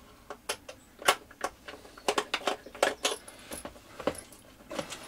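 Irregular sharp clicks and clinks of a small screwdriver and screws against the plastic case of a Hubsan H501S transmitter as its back screws are undone and the back cover is lifted off.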